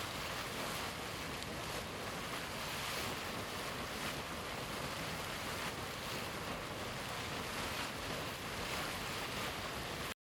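Deildartunguhver hot spring's boiling water bubbling in a dense, steady rush. It cuts off suddenly near the end.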